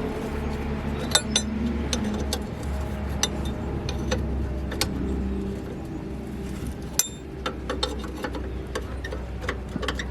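Workshop sounds of metal repair: a steady low motor hum with scattered sharp metallic clinks and taps.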